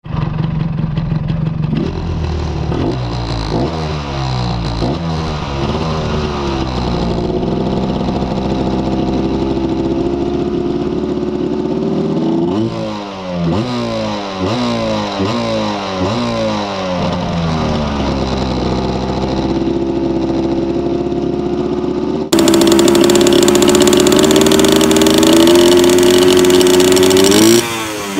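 Yamaha 125ZR two-stroke single-cylinder engine running through a steel exhaust made to look like the stock pipe, revved again and again in quick rising blips, with steadier held stretches between. About three quarters through, the sound suddenly becomes louder and brighter.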